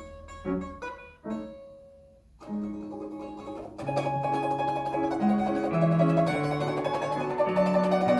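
A plucked string instrument playing with piano accompaniment: short plucked notes and a brief pause about two seconds in, then from about four seconds a louder, fuller passage of held notes over low bass notes.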